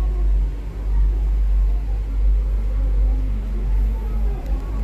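Steady, loud low rumble inside a moving cable-car cabin, with faint wavering tones above it.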